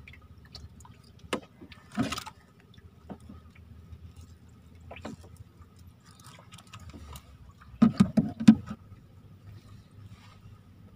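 Scattered knocks and clicks from hand-line fishing gear being worked in a wooden boat, with a cluster of louder knocks about eight seconds in, over a faint steady hum.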